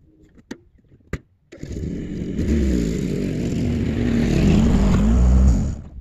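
Pickup truck engine running as the truck drives in, its pitch rising and falling, then cutting off suddenly near the end. Two faint clicks come before the engine sound begins about a second and a half in.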